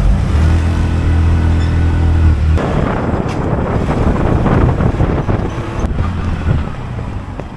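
Tuk-tuk's small engine running steadily on the move, heard from inside the open cab. About two and a half seconds in, a louder rushing noise of wind and road comes in and covers the engine.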